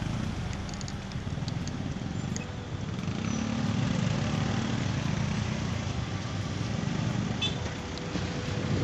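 Steady low rumble of a running motor vehicle, with a faint engine tone that swells for a couple of seconds about three seconds in.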